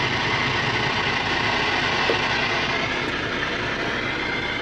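Steady hiss of static from a Bearcat CB radio's speaker: the open channel after a radio check call, with no station answering. A low engine hum runs underneath.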